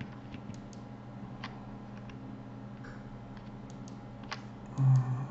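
Computer mouse clicking: scattered single sharp clicks over a steady low electrical hum, with a brief louder low sound near the end.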